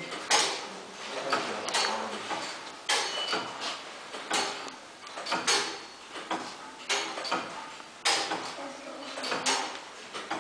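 Tower clock movements ticking: sharp mechanical clicks and knocks at an uneven beat, about one or two a second.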